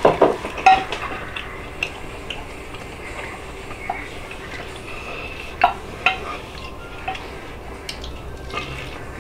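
A person eating barbecue-sauced baby back ribs by hand: chewing and mouth smacks, with a few short sharp clicks scattered through from the rib bones and the plate being handled.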